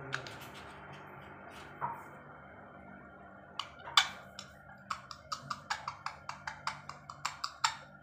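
Parrot's beak clicking and tapping as it feeds: a few scattered sharp clicks, then from about halfway a quick run of sharp clicks, about four a second.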